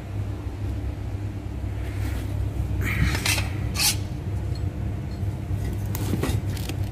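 Metal parts of a twin-plate clutch and flywheel clinking against each other as they are handled: a couple of sharp clinks about three seconds in and more near the end, over a steady low hum.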